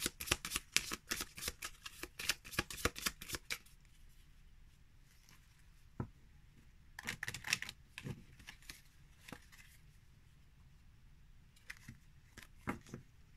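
A small deck of about fifteen thick Grimaud oracle cards being riffle-shuffled by hand: a fast run of card flicks for the first three and a half seconds, then scattered taps and short flurries as the cards are squared and shuffled again.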